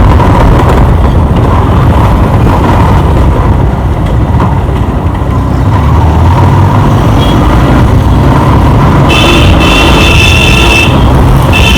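Wind and road noise rushing over the microphone of a motorcycle on the move. A vehicle horn sounds for about two seconds starting about nine seconds in, with a short honk near the end.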